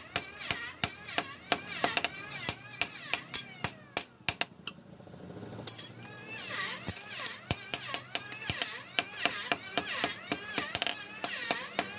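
Hammer blows on steel, a few strikes a second, forging a machete blade from a chainsaw bar, with a short pause a little before the middle.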